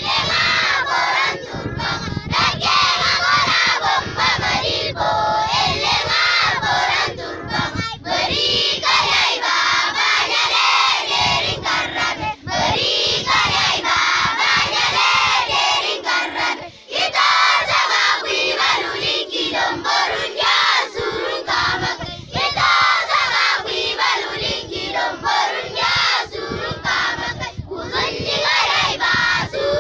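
A crowd of many voices shouting and singing at once, with two short lulls about twelve and seventeen seconds in.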